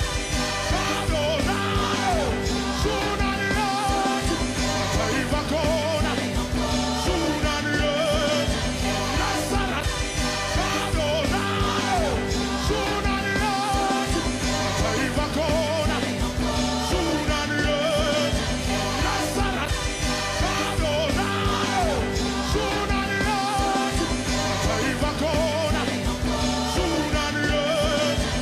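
Background music: a song with singing over a band, playing steadily.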